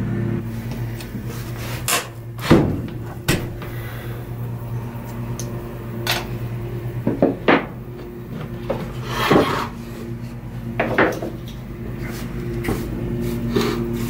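A hand tool scraping and knocking on wood: a string of separate sharp knocks and short scrapes a second or two apart, with a longer scrape about nine seconds in, over a steady low hum.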